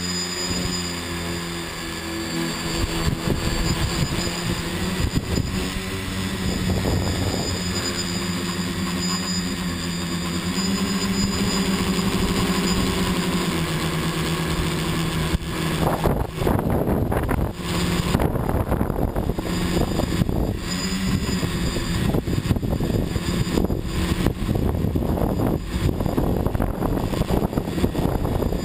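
Electric multirotor drone's motors and propellers whirring steadily, their pitch shifting in small steps as the throttle changes. From about halfway the sound turns rougher and gustier, with wind buffeting the on-board microphone as the drone flies low over the grass.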